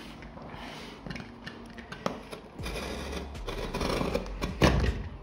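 Box cutter blade slicing along packing tape on a cardboard shipping box: a run of scraping and tearing strokes that grows denser and louder partway through, with one sharper, louder stroke near the end.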